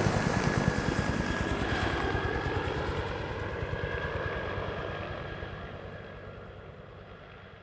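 Bell 212 helicopter flying away after passing overhead. The steady beat of its two-bladed main rotor and a thin turbine whine fade out over several seconds.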